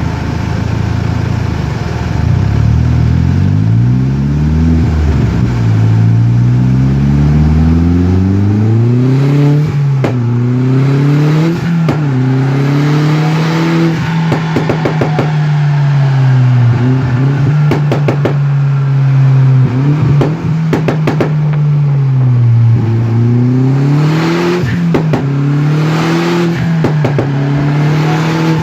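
SEAT Ibiza Cupra's four-cylinder engine revving up and dropping back again and again, with bursts of crackles and pops from the exhaust on overrun as the throttle closes, loudest around the middle and near the end.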